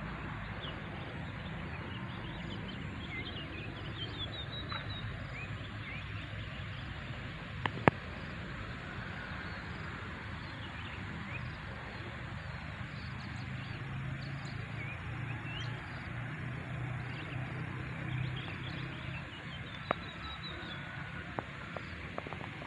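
Small birds chirping repeatedly in short high calls over a steady outdoor background hiss and low rumble, with a sharp click about eight seconds in and another near the end.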